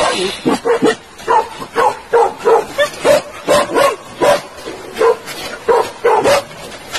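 Repeated short dog barks, about two a second.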